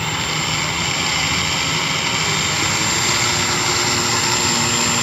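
Radio-controlled rescue boat's propeller motor running steadily, with a constant high whine over the propeller noise.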